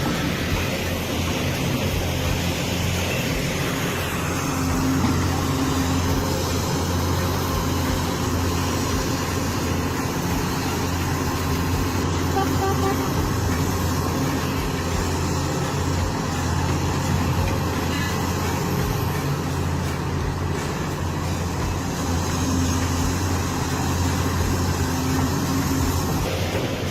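Large diesel engine of heavy machinery running steadily at a constant pitch, with a deep drone.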